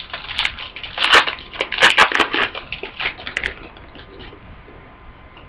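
Crinkling and tearing of a football trading-card pack wrapper being opened by hand, a quick run of crackles that dies away after about three and a half seconds.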